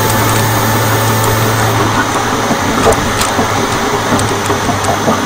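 2016 Audi S4's supercharged 3.0-litre V6, with a stage 1 tune and aftermarket intake, running while the car drives, heard through a microphone under the engine. A steady rushing noise carries a low hum that weakens about two seconds in, with a few small ticks.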